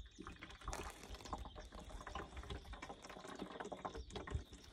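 Water poured from a plastic bottle into a plastic jug, splashing unevenly as the jug fills.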